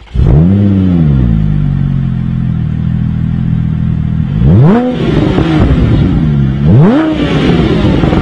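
Porsche 997 GT3 flat-six firing up through an AEPerformance aftermarket exhaust. It flares in revs on starting and settles to a steady idle, then is blipped twice, a sharp rev rising and falling back each time, about four and a half and six and a half seconds in.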